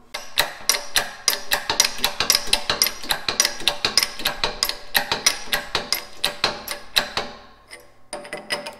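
Rapid, even metallic clicking, about five clicks a second, thinning out near the end.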